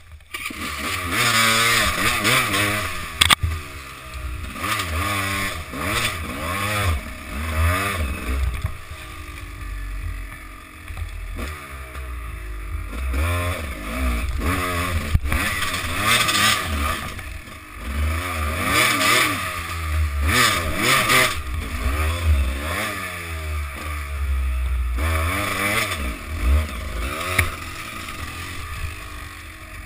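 Enduro dirt bike engine revving up and down over and over as the throttle is worked on a steep rocky climb, heard from the rider's helmet, with a few sharp knocks.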